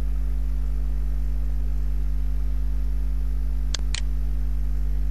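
Steady electrical mains hum, with two quick clicks close together about four seconds in: a computer mouse button clicking.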